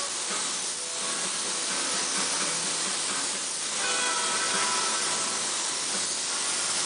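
Gravity-feed spray gun spraying a coat of paint, a steady hiss of compressed air and atomised paint.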